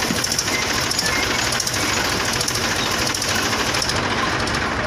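Diesel tractor engine, the Mahindra 265's, running steadily while the tractor stands hitched, with a rhythmic knocking clatter.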